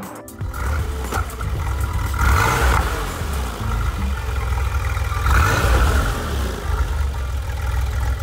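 Turbocharged air-cooled Porsche 911 flat-six in a GT2-clone car, running under way with a steady low rumble. It swells louder twice, about two seconds in and again about five seconds in.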